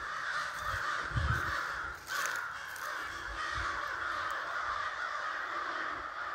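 A large number of crows cawing at once, their calls overlapping into a continuous, unbroken chorus.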